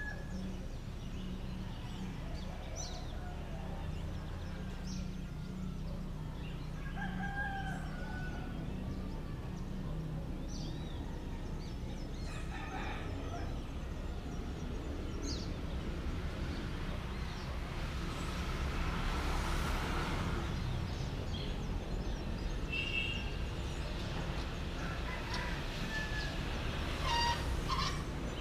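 Roosters crowing at dawn, a few times across the stretch, with other birds calling in short chirps. Under it runs a steady low rumble, and a brief swell of rushing noise comes about two-thirds of the way through.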